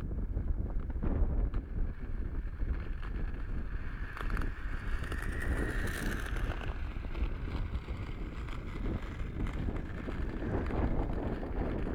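Wind buffeting the microphone, with the rolling rumble of roller-skate wheels on rough concrete that swells and fades as the skater passes close about halfway through.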